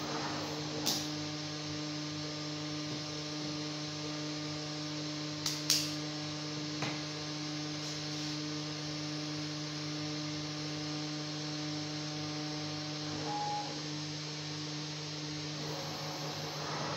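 Steady electrical hum with a low tone and its overtones from the powered-up CNC router and its control box, broken by a few sharp clicks in the first seven seconds and a brief high beep about three-quarters of the way through.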